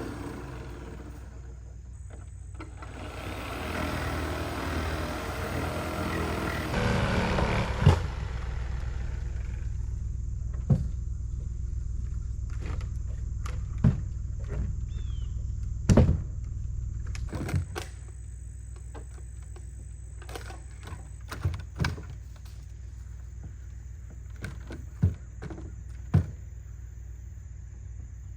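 Demolition of a nailed wooden deer-blind frame: a few seconds of rough hissing noise, then about nine sharp single knocks and bangs at irregular intervals, over a low steady hum.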